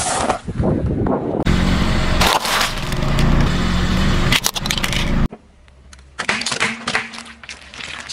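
A car tyre rolling slowly over small objects on asphalt, candy-coated chocolates and a toy car, crushing them with crunching and sharp cracks over the low hum of the car. The sound cuts abruptly between shots and is quieter after about five seconds, with a few scattered cracks.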